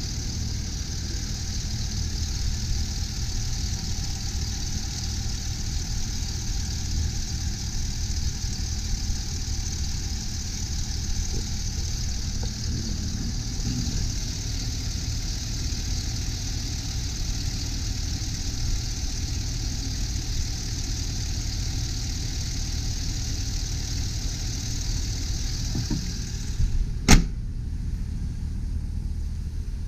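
The 6.0-litre V8 of a 2003 GMC Sierra 2500HD idling steadily and smoothly with no roughness, heard from above the open engine bay. About 27 seconds in, the hood shuts with a single sharp bang.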